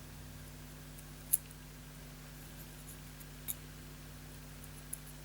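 Three faint, sharp clicks as a small contact spring inside an electric fan heater's switch is picked at and will not come out, over a low steady hum.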